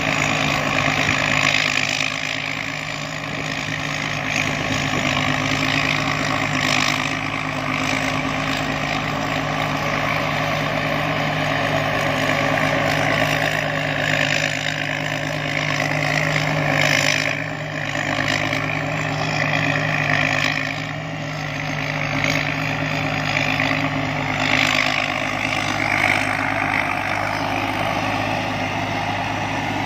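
Combine harvester engine running steadily, an even low drone.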